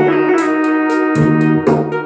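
Korg Pa50SD arranger keyboard playing an instrumental passage: a sustained melody over a pulsing bass line and a steady drum beat from its accompaniment.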